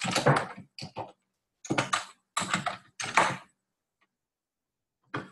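Typing on a computer keyboard in several quick bursts of keystrokes, stopping about three and a half seconds in, then one short click near the end.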